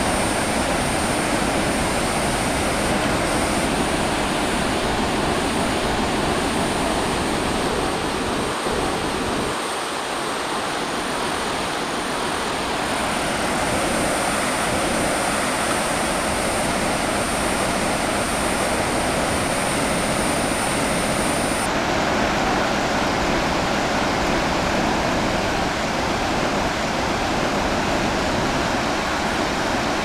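Steady rushing of a wide waterfall in full flood, heavy water pouring over a broad cliff edge into a misty plunge pool.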